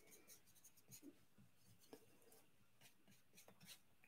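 Near silence, with faint scratchy ticks of a watercolour brush stroking paper.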